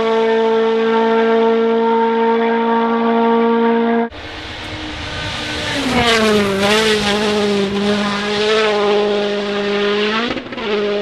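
World Rally Championship rally car engine held at high revs with a steady note. About four seconds in the sound cuts off abruptly, then the engine climbs back to a high, slightly wavering note, with a brief jump in pitch near the end.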